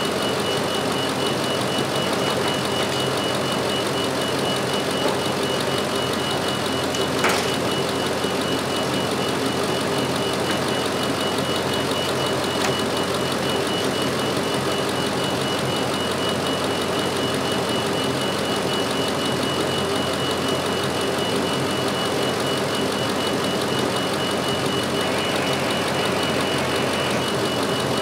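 Ford F350 pickup's gasoline engine idling steadily, with a thin steady high whine running through it.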